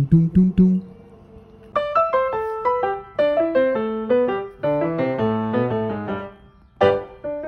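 Background keyboard music: a few low notes at the start, then a quick, bright melody from about two seconds in.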